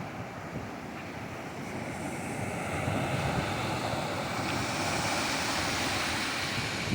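Ocean surf washing onto a beach, the rush of the waves swelling about two seconds in and then holding steady.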